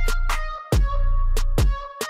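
Background music with a steady beat: a deep bass note under sharp drum hits and a melody.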